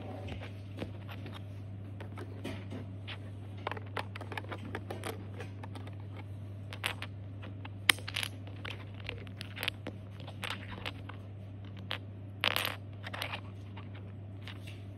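Lego plastic bricks being handled and pressed together: scattered small clicks and rattles, with a short rustle about twelve seconds in, over a steady low hum.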